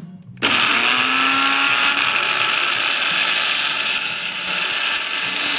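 Nutribullet NB-101S blender motor running with an empty cup. It stops for a moment, then starts again about half a second in with a rising whine as it spins up, and runs steadily after that.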